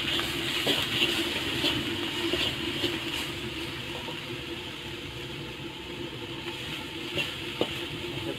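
Shrimp, garlic and ground spice paste sizzling in hot oil in a wok, steady, with a spatula scraping and tapping against the pan now and then.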